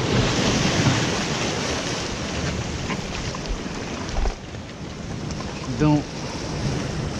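Waves surging and washing over rocks, with white water churning. The rush is strongest for the first four seconds, drops off suddenly, then builds again.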